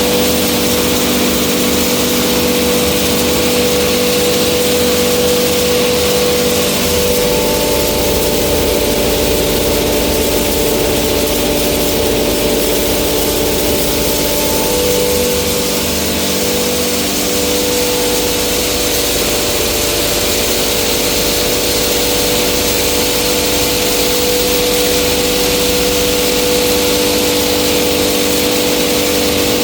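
Hammer-mill pulverizer running steadily while grinding soybeans into flour: a loud, continuous machine hum with a steady tone and a hiss over it.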